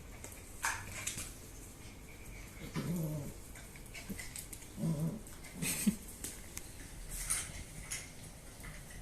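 Two-month-old husky–aspin mix puppies making short, low whimpering grunts, a few of them about three, five and six seconds in, among light clicks.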